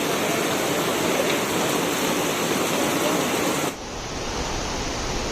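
Rushing water and pouring rain, a loud steady hiss. About three and a half seconds in it cuts abruptly to a duller, lower rumbling noise.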